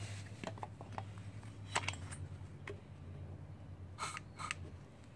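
Short hisses of a WD-40 aerosol can sprayed through its straw into a cylinder head's ports, with light clicks and knocks as the head and straw are handled over a plastic tub. There is a brief hiss cluster a little under two seconds in, and another about four seconds in.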